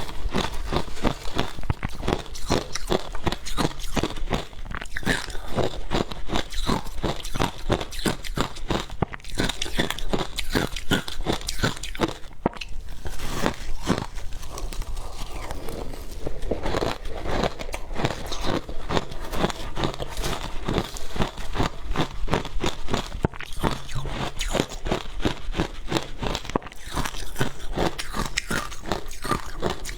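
Close-miked biting and chewing of frozen matcha ice: a dense run of crisp crunches, several a second, easing briefly about halfway through.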